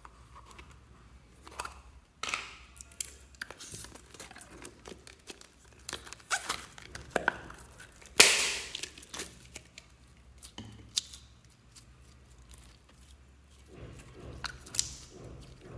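Clear glitter slime being pulled from a plastic tube and stretched between the fingers, giving irregular sticky crackles and clicks, with one louder, longer burst of sticky noise about halfway through.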